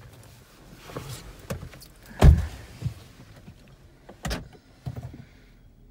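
Driver getting into a Toyota sedan: clothing and seat rustle, the car door shuts with a heavy thump about two seconds in, and a second sharper knock follows a couple of seconds later.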